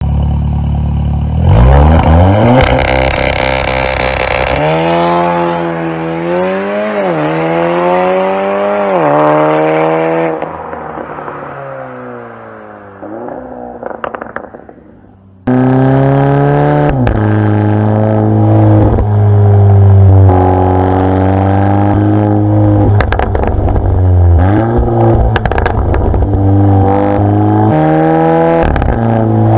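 Audi S3 8V's turbocharged 2.0-litre four-cylinder running through an Armytrix valve-controlled exhaust, revved again and again, its pitch climbing and falling back. The sound cuts off abruptly about halfway, then the engine comes back running low with a run of sharp cracks among the revs.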